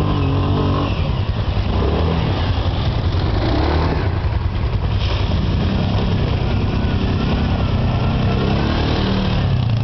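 ATV engine revving under load as the quad climbs a muddy, snowy trail, its note rising and falling with the throttle.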